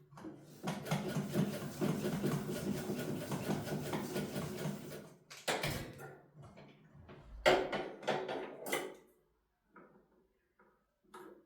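Sewing machine stitching in a steady run for about four seconds, then stopping, followed by a few sharp clicks and knocks of handling. The owner says this machine sews only with difficulty even after oiling.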